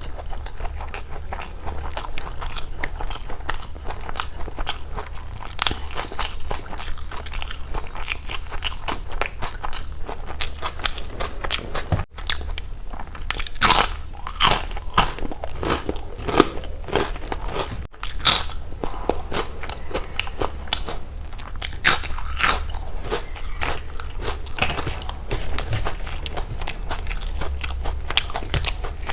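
Close-miked eating: a person chewing and biting into food, with a steady run of wet mouth clicks and several loud crunchy bites.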